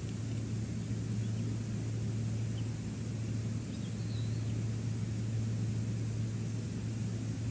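Steady wind and sea noise on an outdoor nest-cam microphone, with a steady low hum beneath it. A few faint, short high chirps come through, mostly around four seconds in.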